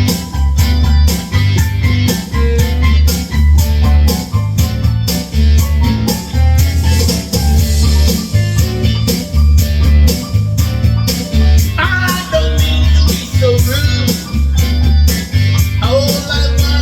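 A blues song playing, with a steady pulsing bass and drum beat, guitar and keyboard; a voice comes in singing about twelve seconds in and again near the end.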